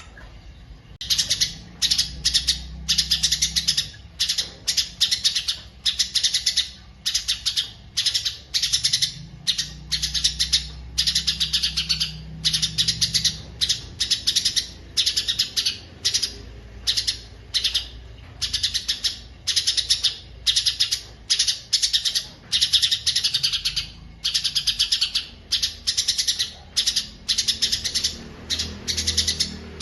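A songbird singing loudly in short, rapid phrases of high chirps and trills, one after another with brief gaps, starting about a second in.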